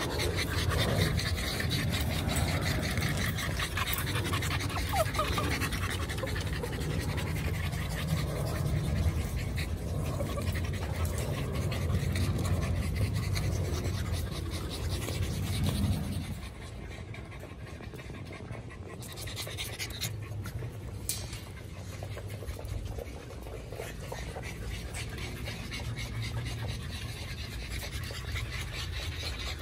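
American Bully puppies panting. The sound drops abruptly to a quieter level a little over halfway through.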